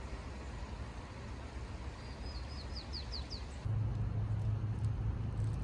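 A songbird sings one short phrase, a brief flat trill followed by four quick falling notes, over a steady low outdoor rumble. The rumble steps up louder about two-thirds of the way through.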